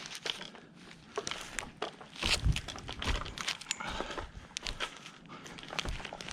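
Irregular clicks, scrapes and crackles of handling and movement, loudest a little past two seconds in; no chainsaw running.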